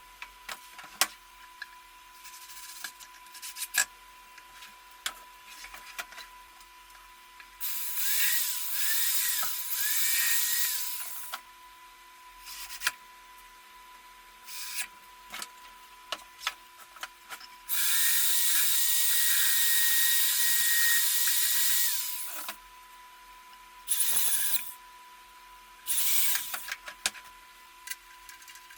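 Electric hand drill running in four bursts: two of about four seconds each, then two short ones near the end, with a whine under the noise. Scattered clicks and knocks fall between the bursts.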